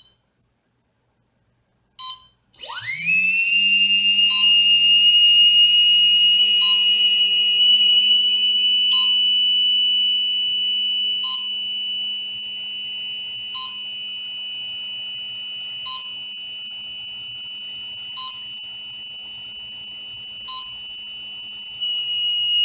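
Brushless drone motor on its electronic speed controller: two short beeps, then the motor spins up quickly about two and a half seconds in and runs steadily with a high electronic whine over a low hum. A short beep repeats about every two seconds, and the motor runs a little quieter from about halfway through.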